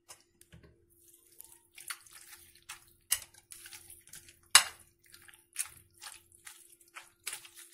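Metal potato masher pressing boiled potatoes and milk in a glass bowl: irregular wet squelches and clinks against the bowl, the loudest knock about four and a half seconds in. A faint steady hum runs underneath.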